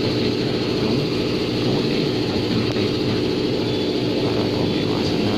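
A steady, even engine hum, like an engine idling.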